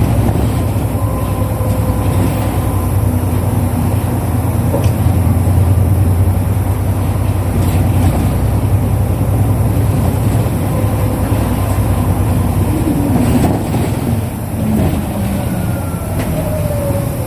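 Interior running sound of a 2005 Isuzu Erga KL-LV834L1 city bus: its diesel engine runs with a steady low hum while the bus drives. It eases off a little about three-quarters through, and a falling whine follows near the end.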